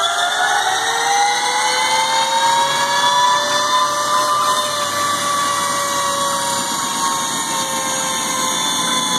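Brushless DC motor of a home-built electric motorcycle whining under load on a roller dyno, with the rear tyre spinning on the roller. The whine rises in pitch as the wheel spins up, levels off about four seconds in, then slowly falls.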